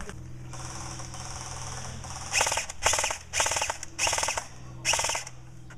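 Airsoft electric gun (AEG) firing five short full-auto bursts, each a rapid rattle lasting about a third to half a second.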